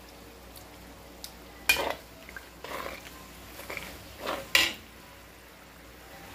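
A metal spoon clinking and scraping against a cooking pot while a spoonful is taken from the sambal to taste, with a few sharp knocks, two of them louder.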